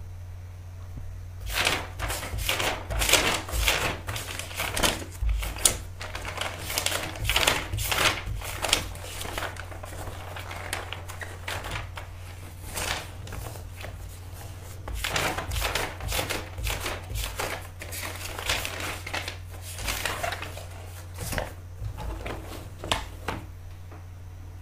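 Irregular clicks, taps and short rustles of objects being handled close to the microphone, over a steady low hum.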